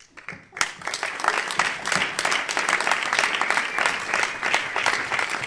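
Audience applauding: a few scattered claps, then thick steady applause from about half a second in.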